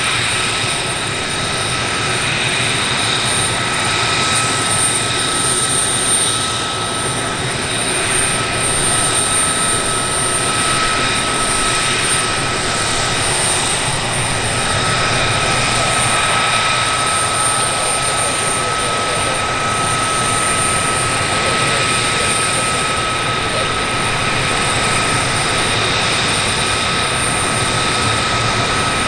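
US Navy F-35C Lightning II's single turbofan engine running at taxi power: a steady, loud jet whine with high held tones over a rushing noise.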